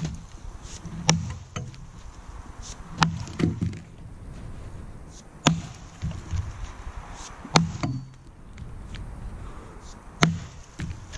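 An axe chopping into a log while bucking it: five heavy strikes about two to two and a half seconds apart, each a sharp crack with a dull thud, with a few lighter knocks between.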